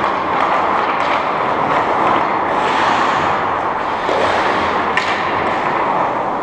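Steady rushing noise of an indoor ice rink during hockey play, with a single sharp click about five seconds in.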